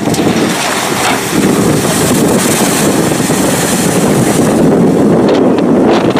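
Amphibious tour bus driving into the water and pushing through it, a steady rush of water splashing at its bow, with wind buffeting the microphone.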